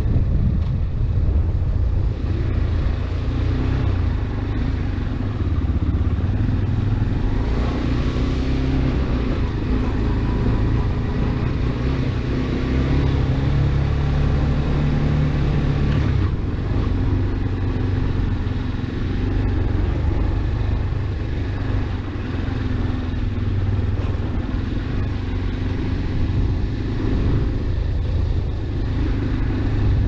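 AKT RX1 motorcycle engine running steadily while riding along a dirt track, with an abrupt change in its note about halfway through.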